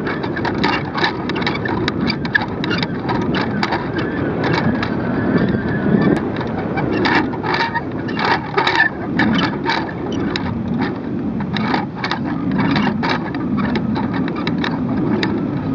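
Wind rumbling over a camera hung from a kite, with frequent irregular clicks and rattles from the swinging camera rig.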